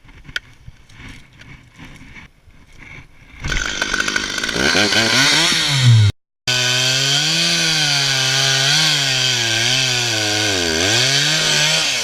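Two-stroke Stihl chainsaw starting up about three and a half seconds in and revving. It then runs loud, its pitch sagging and recovering again and again as it works under load in wood, and breaks off for a moment about six seconds in. A few light clicks come before it starts.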